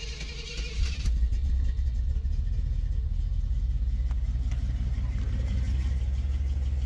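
1972 Chevrolet Monte Carlo V8 starting: a high whirring stops about a second in as the engine catches, then the engine runs at a steady idle. It has a lifter tick from the passenger-side bank.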